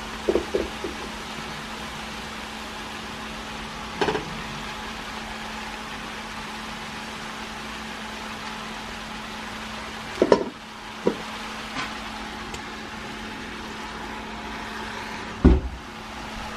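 Shredded cabbage cooking in a stainless steel pan under a steady hiss and low hum. Cooked spaghetti is tipped in on top, with a few scattered clinks and knocks against the pan and one heavier thump near the end.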